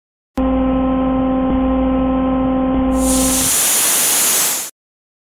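Hydraulic drive of a height-adjustable loading-dock bumper lowering it: a steady pump hum starts about half a second in. Near the end a hiss takes over as the hum stops, and the hiss then cuts off suddenly.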